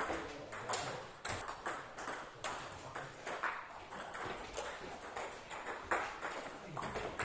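Table tennis rally: sharp clicks of the celluloid ball off the rackets and bouncing on the table, a couple a second at an uneven pace. One side is chopping with a long-pimple rubber on a defensive blade.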